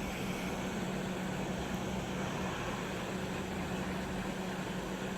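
Heat gun blowing steadily: a constant rush of air with a steady low hum, melting the solder that holds a flex cable to a circuit board.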